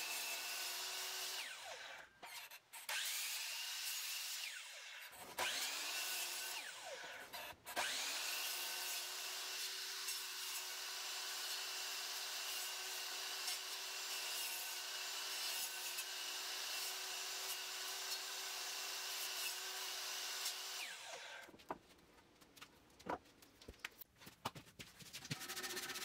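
DeWalt sliding compound miter saw spinning up with a rising whine and cutting through wood, started several times in quick succession. The last run holds steady for about 13 seconds before winding down about 21 seconds in. A few light clicks and scrapes follow.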